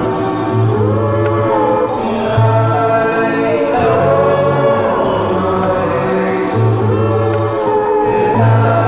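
Background music: a choir of voices singing long gliding notes over a steady bass line and a light regular beat.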